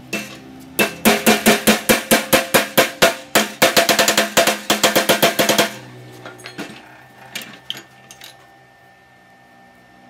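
Hammer blows on a bent steel rod clamped in a steel bench vise, a quick even run of about four or five strikes a second for some five seconds, each with a metallic ring. Then a few light metal clinks as the rod is handled.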